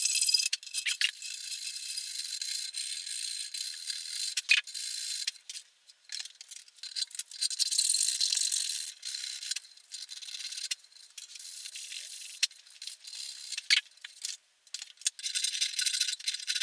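Small files rasping against the wooden edges of a routed F-hole in a thin guitar top, in runs of quick strokes with short pauses and a few sharp clicks. The filing takes out the roughness left by the router and shapes the F-hole's points.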